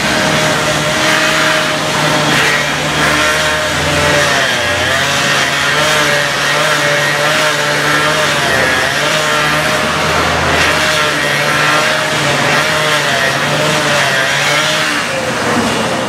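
Gas-powered handheld cut-off saw, a two-stroke engine, running at high speed while its abrasive blade cuts into asphalt. The engine note dips briefly several times as the blade bites under load.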